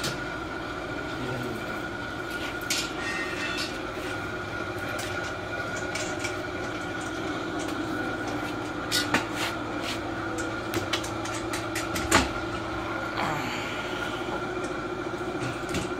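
Knocks and clicks of a traction bed's steel frame being handled and set on its legs, the sharpest about nine and twelve seconds in, over a steady machine hum with a held tone.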